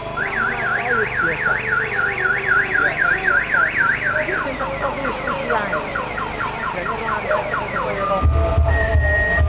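Electronic alarm siren sounding a rising whoop about four times a second, then switching a little past halfway to faster falling chirps as it cycles through its tones. Near the end, music with a heavy bass beat comes in.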